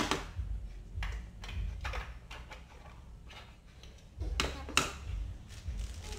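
Hard plastic toy pieces knocked and set down on a tabletop: one sharp knock at the start, then scattered lighter clicks and knocks, with two sharper ones a little after four seconds in.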